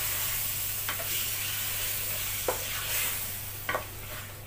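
Chicken and yogurt sizzling in a metal pot while being stirred with a wooden spatula, with three light knocks of the spatula against the pot. The sizzle eases slightly near the end.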